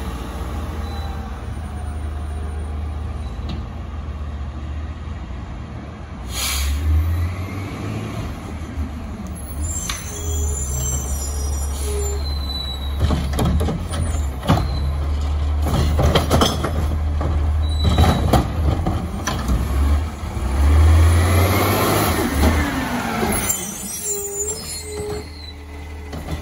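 Diesel garbage truck running, with a brief air brake hiss about six seconds in. A run of clattering knocks comes through the middle, and near the end the engine revs up and down as the automated arm lifts a recycling cart.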